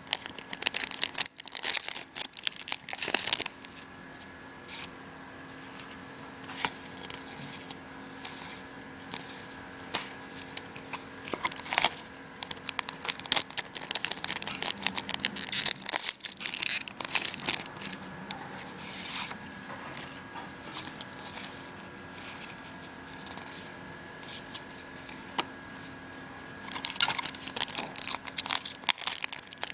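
Foil booster-pack wrapper being torn open and crinkled by hand, in bursts of crackling: at the start, twice around the middle and again near the end. A faint steady hum runs between the bursts.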